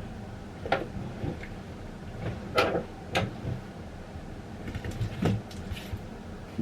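Steady low room hum with five short taps and rustles spread through it, the small sounds of someone working at a desk.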